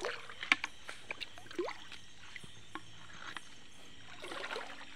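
Shallow river water stirred by hand: light splashes and drips in scattered small bursts, with a sharp click about half a second in and a busier spell of splashing near the end.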